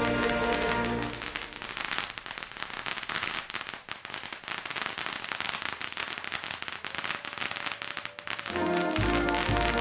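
Fireworks crackling, a long run of rapid irregular pops, quieter than the music around it. Music plays for about the first second, and music with a steady bass beat comes back near the end.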